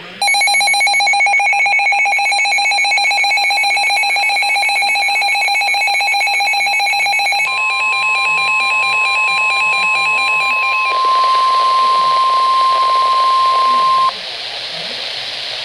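Emergency Alert System warning tones. A harsh buzzing attention signal sounds for about seven seconds, then a steady single NOAA Weather Radio warning tone comes in, overlaps it briefly and cuts off suddenly about fourteen seconds in. Radio static hiss is left behind.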